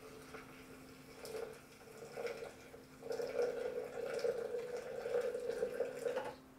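Water pouring from a gooseneck kettle onto coffee grounds in a glass French press: two short pours, then a steady stream from about three seconds in that stops abruptly just before the end.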